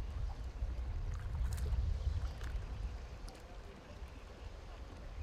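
Wind rumbling on the microphone, with small waves lapping at the water's edge and a few faint ticks.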